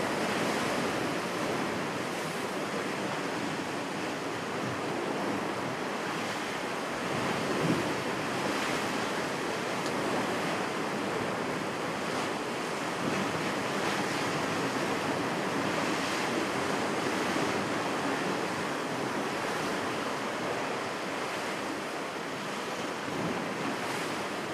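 Sea waves washing against the rocks below, a steady rush of surf, with some wind buffeting the microphone.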